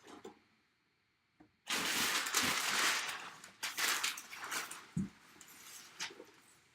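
Packaging being handled: a dense stretch of rustling and crinkling from about two seconds in, then scattered crackles and a soft thump.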